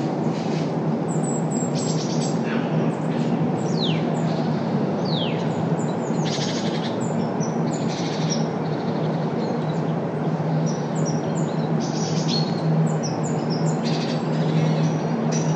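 Songbirds chirping again and again, with a few quick falling whistles, over a steady low rumble of city traffic.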